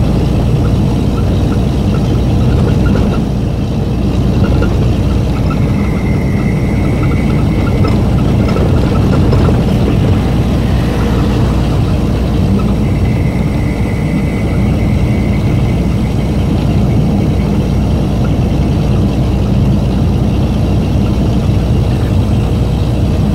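Steady engine and tyre noise of a truck cruising at highway speed, heard inside the cab. A faint high whine comes and goes twice.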